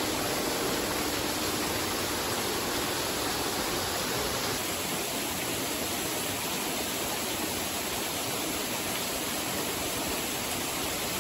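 Water running steadily over rocks in a shallow stream, an even rushing sound that eases slightly about four and a half seconds in.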